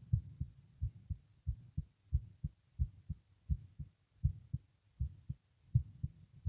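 Human heartbeat, with regular paired lub-dub thumps at about 85 beats a minute over a faint hiss. The uploader calls it a pounding heartbeat with a heart murmur and palpitations.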